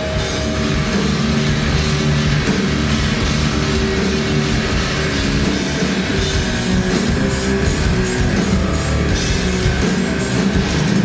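A live heavy metal band playing loud, with electric guitar, bass guitar and drum kit. The drum strikes come through more sharply from about halfway through.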